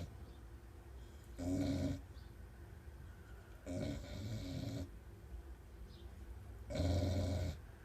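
Small dog snoring like a person, three snores about two and a half seconds apart.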